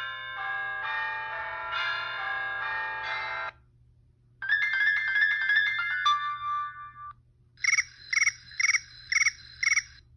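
Original iPhone ringtones playing one after another: first a chord of many sustained ringing tones for about three and a half seconds, then after a short gap a run of notes that ends on a held lower note, then a ringing pattern that pulses about twice a second.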